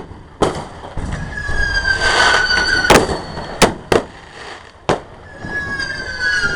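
Fireworks going off: about six sharp bangs of bursting shells, with a whistling firework's high whistle, falling slightly in pitch, about a second in and again near the end.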